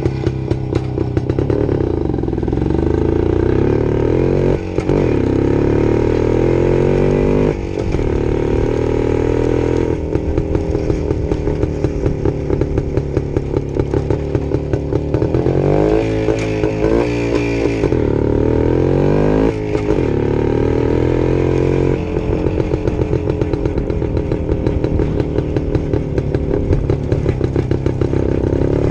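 Jawa 250 type 579 'Švéd' single-cylinder two-stroke motorcycle being ridden: the revs climb several times with brief drops between, and in stretches the exhaust note breaks into a rapid, uneven pulsing.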